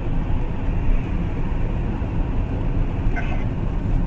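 Steady low rumble of a moving vehicle's engine and road noise, picked up by a dashcam.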